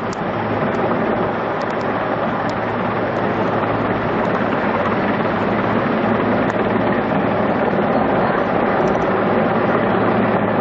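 Helicopter hovering overhead: a steady rush of rotor and engine noise with a low hum underneath.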